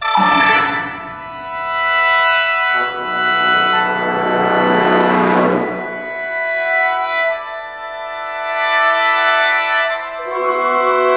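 Sheng (Chinese free-reed mouth organ) playing sustained chords with a symphony orchestra. A loud chord enters suddenly at the start and a denser passage swells up and fades in the middle, then the held chords return.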